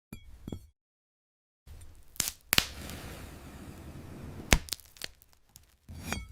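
Glass kiwi being bitten and crushed: a few sharp cracks, the loudest about two, two and a half and four and a half seconds in, with crackling crunching between them and a final crunch near the end.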